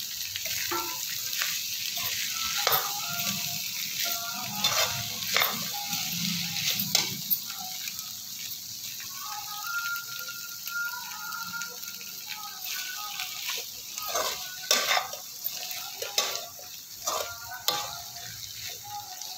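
Potato pieces frying with a steady sizzle in a metal kadhai while a metal spatula stirs in the spice masala, scraping and clacking against the pan at irregular moments.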